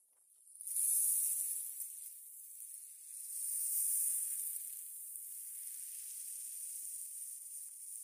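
Small waves washing up a pebble beach, the foam running over the stones in a high, hissing wash. It swells sharply about a second in and again around four seconds, then settles to a steady wash.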